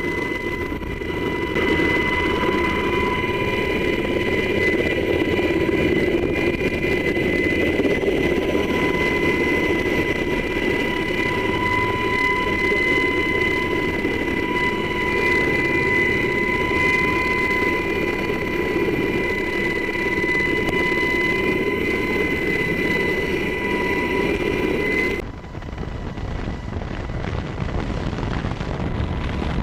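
HH-60 Pave Hawk rescue helicopter running: a steady rushing with a high whine. About 25 seconds in it cuts off abruptly to a quieter rushing like wind on the microphone.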